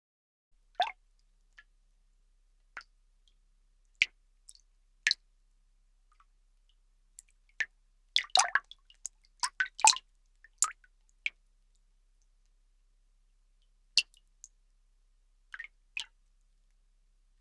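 Water drops dripping and plopping at an irregular pace, single drops at first, then a quick cluster of many drops in the middle before thinning out again.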